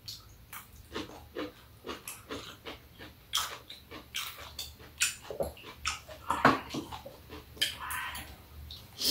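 Eating at a table: a string of short clicks and taps from metal chopsticks against dishes and a metal tray, mixed with chewing and mouth sounds.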